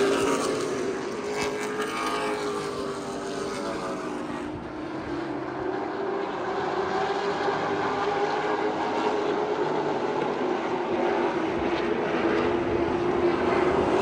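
Engines of a pack of stock race cars lapping a short oval. The cars pass close at the start, their engines fade to a steady distant drone a few seconds in, then grow louder again as the pack comes back around.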